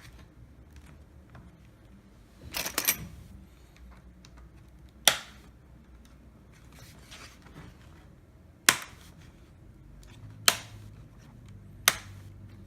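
Plastic screen bezel of a Toshiba Satellite laptop snapping onto the lid as it is pressed around the edge: a short cluster of clicks, then four single sharp snaps spread over the rest.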